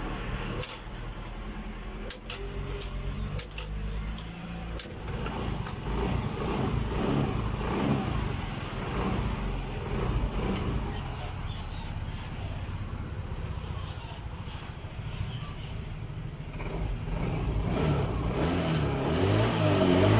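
Yamaha Mio Soul GT scooter's single-cylinder fuel-injected engine running on the stand while its fuel pressure is tested, the gauge showing a normal pressure of about 40 psi. Its speed wavers up and down through the middle and it revs up and down near the end as the throttle is opened. A few sharp knocks sound in the first five seconds.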